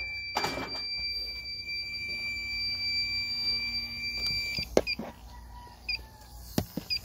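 Electronic refrigerant leak detector, just switched on. It gives a steady high beep for about four and a half seconds, then short chirps about once a second, with a few knocks from handling.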